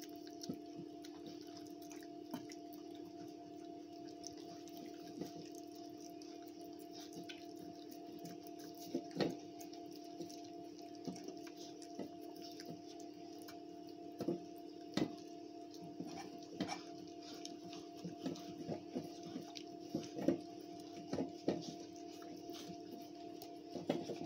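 Border Collie puppies licking and nosing a stainless steel food bowl, giving scattered clinks and taps against the metal. The clinks come more often and louder in the second half. Underneath runs a steady hum.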